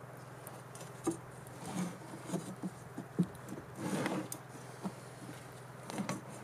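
Light knocks, taps and rustles of wooden pieces and tools being handled and set down, with a brief scrape about four seconds in, over a faint steady hum.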